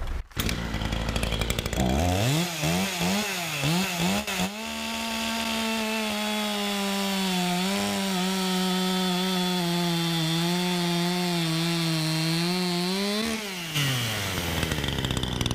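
Maruyama 51 cc two-stroke chainsaw with .325 chain cutting through a log in a timed crosscut. It revs up and down a few times, then is held at full throttle for about nine seconds as it saws through, and drops back toward idle near the end.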